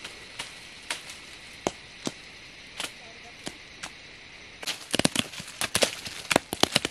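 Green fruit falling from a tree and hitting the ground: scattered single thuds, then a quick flurry of many from about five seconds in.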